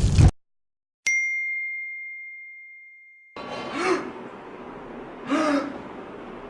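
A loud noise cuts off abruptly, and after a moment of silence a single bell-like ding sound effect rings out and fades away over about two seconds. Then a person makes two short 'ah' sounds, the build-up to a sneeze.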